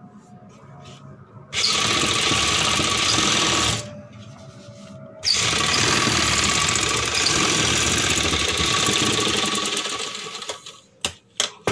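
Domestic sewing machine stitching through cotton fabric in two runs: a short run of about two seconds, a brief pause, then a longer run of about five seconds that slows and stops. A few sharp clicks follow near the end.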